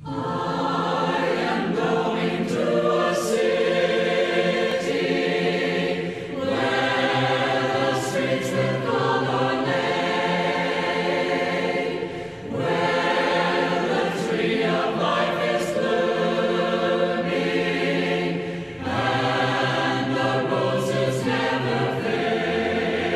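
Unaccompanied choir singing a hymn in harmony, in four phrases of about six seconds each, with a short break for breath between phrases.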